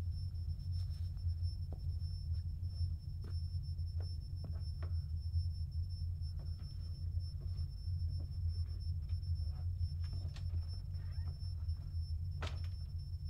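A low, steady throbbing drone from the film's score or sound design, with faint scattered clicks over it and one sharper click near the end.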